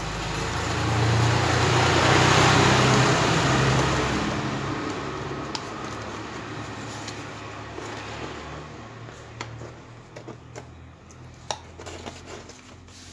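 A motor vehicle passing by: its engine and road noise swell over the first two to three seconds, then fade slowly away. A few light clicks come through in the second half, from a paper card being fitted into a speaker's voice-coil gap.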